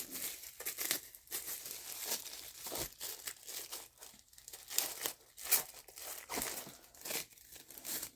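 Plastic packaging crinkling and rustling in irregular bursts as an item is worked out of it.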